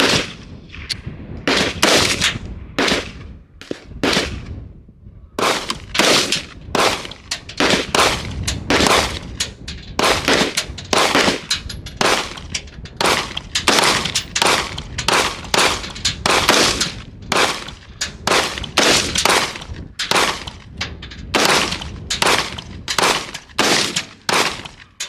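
Gunshots fired in quick succession, about two a second, with a short pause about four seconds in.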